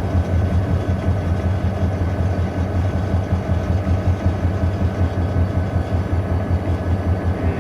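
EMD SD40-2 diesel-electric locomotive's 16-cylinder two-stroke engine running, heard from inside the cab as a steady, loud low drone with rattly noise over it.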